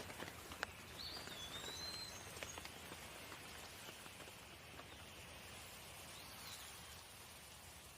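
Light, steady rain with scattered drips. A bird gives a whistled call about a second in and a short one near the end.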